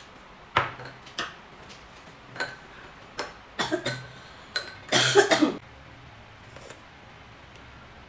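A ceramic bowl set down on a table and a porcelain spoon clinking in it, then a woman coughing several short times, the loudest cough about five seconds in: the cough of a head cold.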